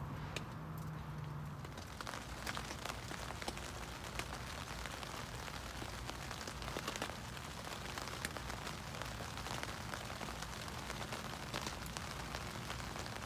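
Rain falling on a tent's fabric roof, heard from inside the tent: a steady hiss with many separate drops ticking irregularly, growing denser about two seconds in.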